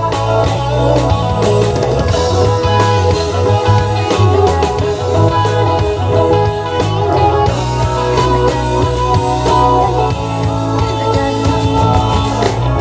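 A rock band playing live: guitars and a drum kit over a steady bass line, with many held notes.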